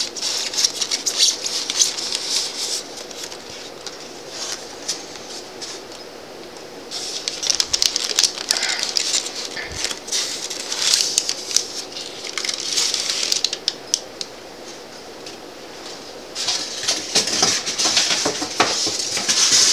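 Styrofoam packing inserts rubbing and squeaking as they are pulled off a boxed toy, with plastic wrapping rustling. The sound comes in several stretches of scraping with quieter pauses between.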